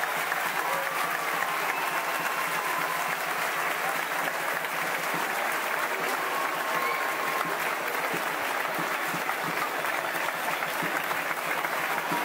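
A large crowd applauding steadily with dense, continuous clapping: the ovation for a completed nine-storey human tower (castell).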